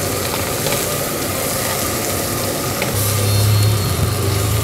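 Pork belly sizzling on a hot grill pan: a steady hiss with a few light clicks, and a low hum that joins about three seconds in.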